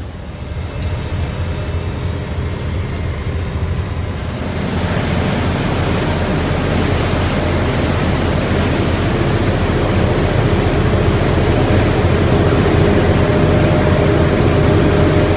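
Passenger boat under way: a steady low engine rumble under the rushing of its wash and wind on the microphone, which grows louder about four seconds in.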